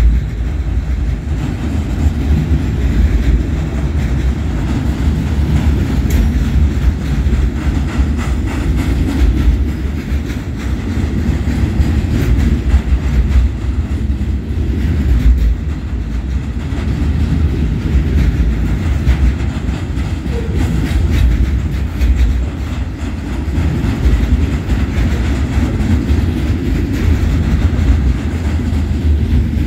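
Freight train of loaded flatcars rolling past at steady speed: a continuous heavy rumble of steel wheels on rail, with a clickety-clack of wheels over the rail joints.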